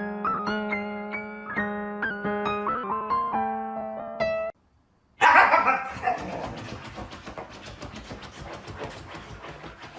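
Piano music playing a melody of separate notes, which stops abruptly about four and a half seconds in. After a brief gap a dog gives a loud call, followed by fast, rhythmic breathing-like noise that gradually fades.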